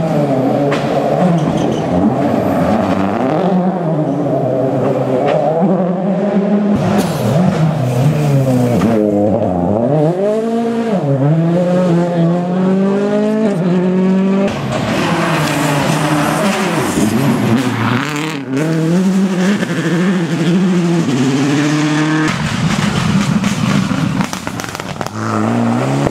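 Rally car engines at full throttle, revs climbing and dropping sharply through gear changes and lifts, with tyre and road noise underneath. The sound changes abruptly a few times as it switches from one car to another.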